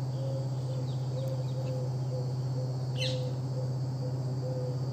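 Outdoor insect chorus of crickets or similar insects, a steady high buzzing with a repeating pulsed tone under it, over a steady low hum. A single bird chirp falls quickly in pitch about three seconds in.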